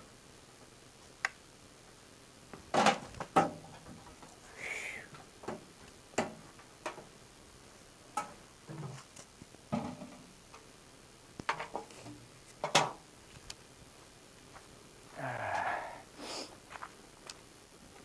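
Someone handling things out of sight: scattered knocks and clicks, the loudest about 3 seconds in and near 13 seconds, with short rustling bursts about 5 seconds in and at 15 to 16 seconds.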